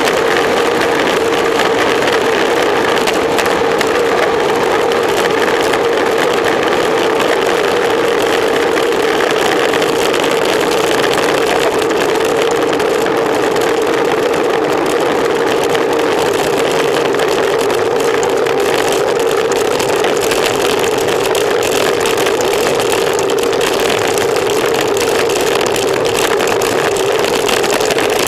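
Steady wind and tyre road noise from a road bicycle riding fast on asphalt, picked up by a camera mounted on the bike, with a constant hum in it and no change in level.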